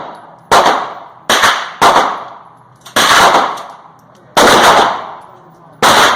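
Gunshots, six in all at uneven spacing, each sharp crack dying away in a long echoing tail.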